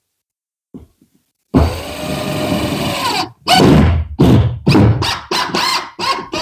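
Loud squeaking: one long squeal, then about six shorter squeaks in quick succession. Heard as an obnoxious noise.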